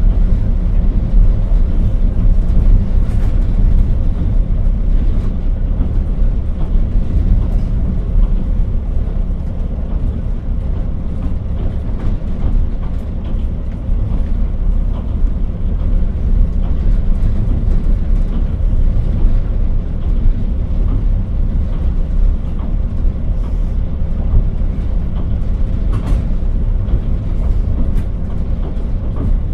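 KiHa 40 diesel railcar under way, heard from on board: a steady low rumble of the diesel engine and wheels on the rails, with a few faint clicks.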